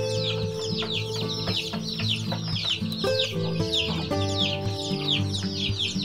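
A brood of newly hatched chicks peeping constantly, many quick high peeps a second, each falling in pitch. Background music with held notes plays underneath.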